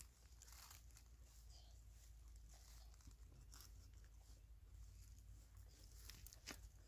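Near silence with a few faint rustles and crunches of dry leaves, over a low steady rumble.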